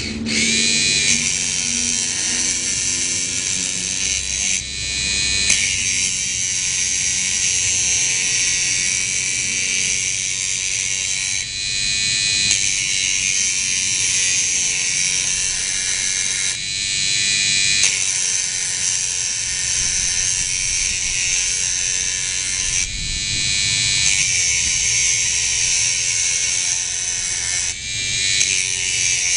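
Small electric grinder running continuously with a high-pitched whine and hiss. The sound shifts briefly every few seconds.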